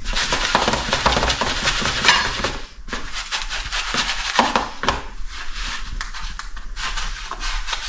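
Small pieces of perch fillet being tossed and pressed into panko breadcrumbs in a bowl: a dense, crumbly rustling with small clicks and scrapes.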